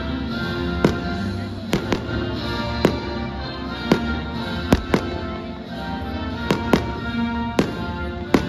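Fireworks exploding, about ten sharp bangs at irregular intervals of roughly a second, over music with sustained notes.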